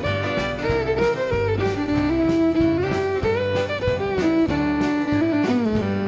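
Western swing band playing an instrumental break: a fiddle carries the melody over a walking bass, rhythm guitar and a steady drum beat.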